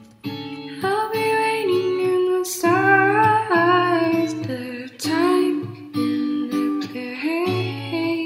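Background music: a gentle song with guitar and a singing voice.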